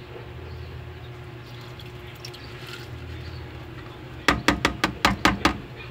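A small bowl knocked rapidly against the rim of a saucepan, about eight sharp taps in just over a second, shaking the last toasted chilli garlic into the pot. A low steady hum sits underneath.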